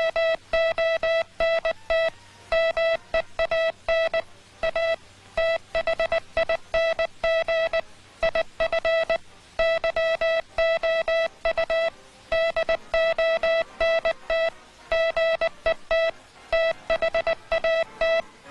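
Morse code sent by hand on a straight telegraph key: one steady mid-high beep keyed on and off in a running pattern of short dits and longer dahs, with short gaps between them.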